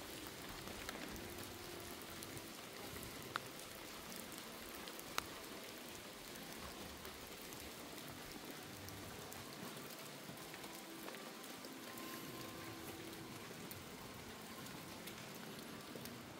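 Faint, steady rain-like hiss, with two small clicks about three and five seconds in.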